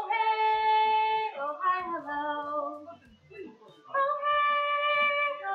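A woman singing a children's song in a high voice, with a long held note at the start and another near the end and shorter notes in between.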